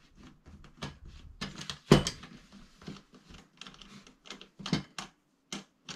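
Softbox mount and light stand parts clicking and knocking irregularly as they are handled and a screw is loosened to fit the mount on the stand, with one sharper knock about two seconds in.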